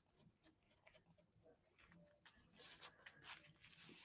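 Near silence, with faint scratchy rustling of paper being handled and rubbed down by hand starting about two and a half seconds in.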